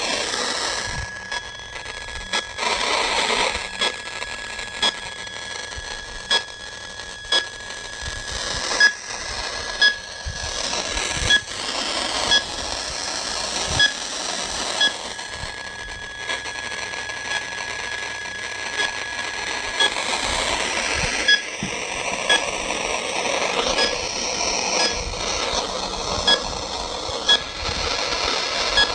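Short electronic beeps repeating roughly every second or so over a steady background noise, from an unidentified device.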